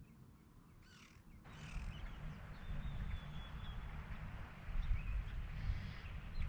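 Two short, harsh bird calls about a second in, over a low rumble of wind on the microphone that grows stronger from about a second and a half on.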